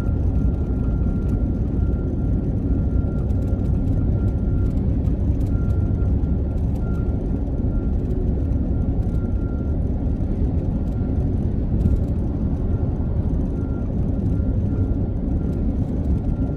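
Steady road and engine noise of a car driving at highway speed, heard from inside the cabin, with a faint thin high tone that drops in and out.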